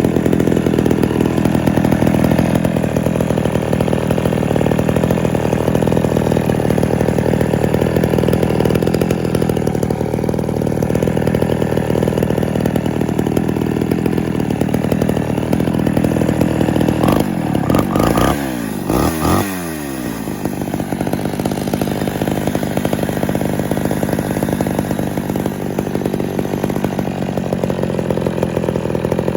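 Homelite Super XL two-stroke chainsaw running steadily. About two-thirds of the way in it revs up and down a few times, then settles back to a steady run.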